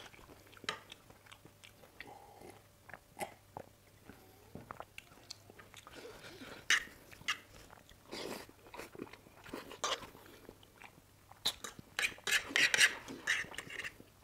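Close-miked eating of masala Maggi instant noodles: chewing and slurping mouthfuls of noodles, with small clicks of a fork on the plate. The eating noises come in irregular bursts, loudest about eight seconds in and again in a dense run near the end.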